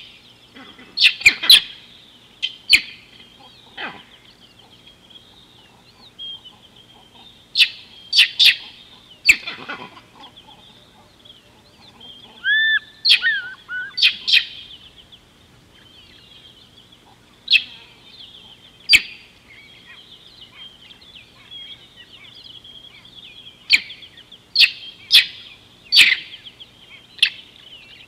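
Wild birds chirping: a steady high twittering with loud, sharp calls breaking in every few seconds, and a short whistled note about halfway through.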